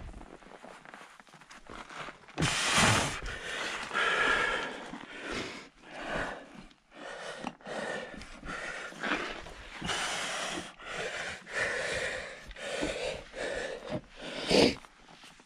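A hiker breathing hard close to the microphone, a run of heavy in-and-out breaths about once a second.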